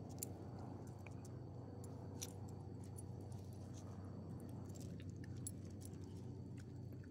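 Metal dog collar tags jingling in scattered light clinks as a small dog shifts and rolls on the ground, over a faint steady low background hum.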